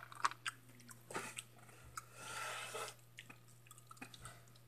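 Crunchy Hot Cheetos being chewed: a few sharp crunches in the first second and a half, then a longer, softer stretch of chewing noise.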